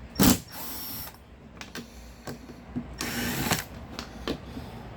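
Work on a wooden shipping crate: a sharp knock about a quarter second in, then two short bursts of rasping noise, one just after the knock and one about three seconds in, with scattered clicks between them.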